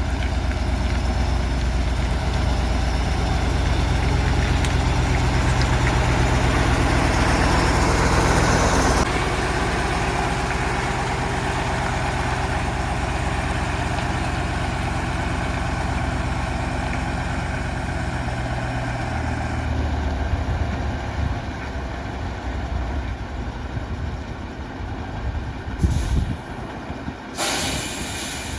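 Tatra 815 truck's air-cooled V10 diesel running steadily, louder for the first nine seconds and then easing to a lower level. Near the end, two sharp hisses of compressed air, typical of the truck's air brakes, the second one longer.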